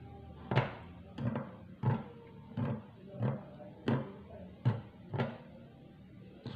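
A fork jabbed again and again through raw chicken pieces marinating in fish sauce, each jab a short knock against the bowl. There are about nine of them, roughly one every two-thirds of a second, and they stop about five seconds in.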